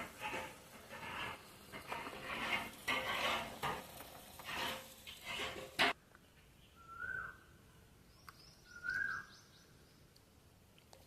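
Irregular noisy bursts, then after an abrupt cut, a bird giving a short rising call twice, about two seconds apart.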